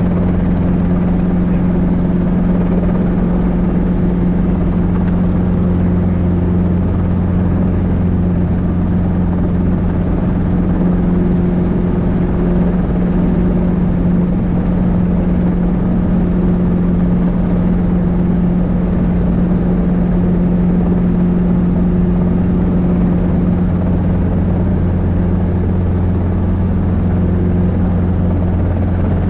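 Helicopter running steadily, a constant low hum from its rotor and engine.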